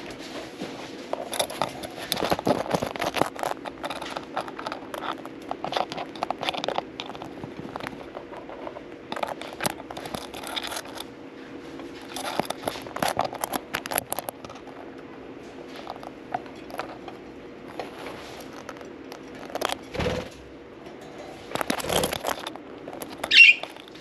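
Budgies shifting about in their cage, with many small clicks, scratches and crackles from beaks and claws, over a steady low hum. One short chirp near the end is the loudest sound.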